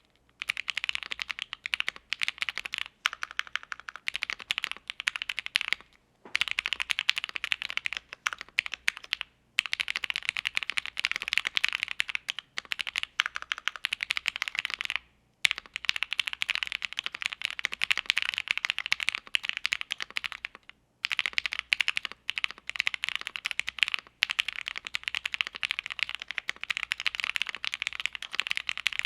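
Fast typing on a mechanical keyboard fitted with Gateron Box Ink Black linear switches, a polycarbonate plate and GMK keycaps: dense runs of keystroke clacks broken by brief pauses every few seconds.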